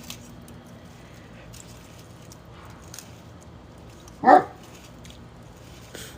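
A dog gives a single short yip about four seconds in, over faint low background noise and a few soft clicks.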